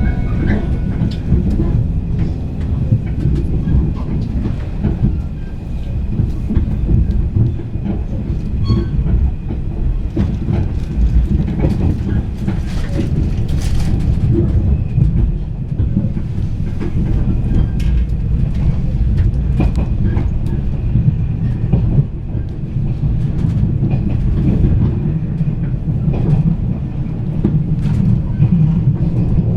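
JR East 485 series limited-express train running, heard from inside the passenger car: a steady low rumble with the wheels clicking irregularly over rail joints.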